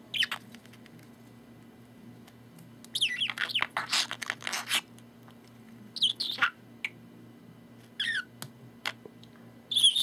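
Budgerigar chattering to its reflection in a mirror: short high chirps that slide in pitch, mixed with sharp clicks. A quick run of them comes about three seconds in, and shorter bursts follow near six and eight seconds and at the end.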